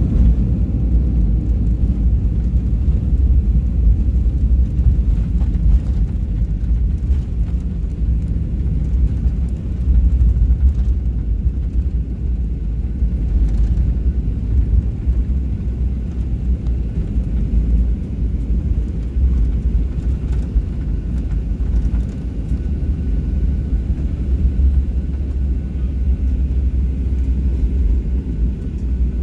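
Steady low rumble of an airliner rolling along the runway after landing, heard from inside the cabin.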